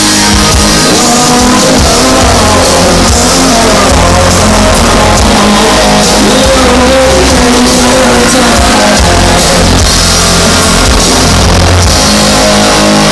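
Live rock band playing with electric guitars and drums, heard loud from within the audience.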